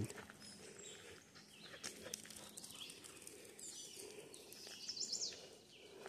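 Faint woodland ambience: a few short bird chirps about four to five seconds in, over light scattered crunches of footsteps on gravel.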